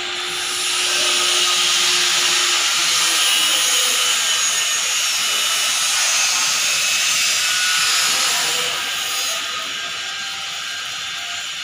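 Steady hissing noise of work going on in a metal fabrication workshop, swelling about half a second in and easing off near the end.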